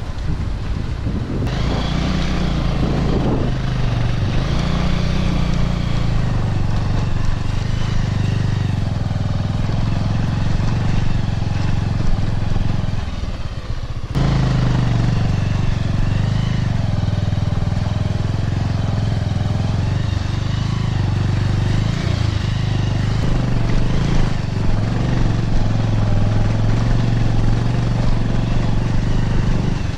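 Motorcycle engine running at low speed, heard from a camera mounted on the bike, its pitch stepping up and down with the throttle. The sound dips briefly about halfway through.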